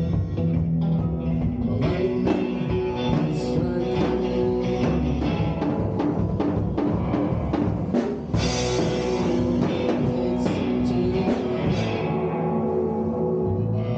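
A rock band playing live in a small room: electric guitar holding chords over a drum kit, with frequent drum hits.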